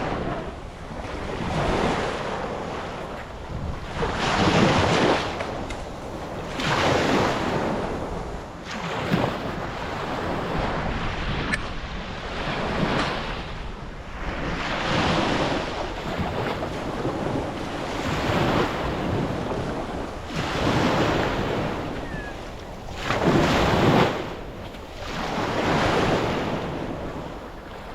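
Sea waves rushing and splashing around a boat, swelling and fading every two to three seconds, with wind buffeting the microphone.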